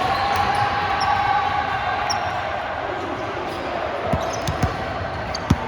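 A volleyball making three sharp thumps in the last couple of seconds, the last one the loudest. Before them a held tone falls slowly in pitch.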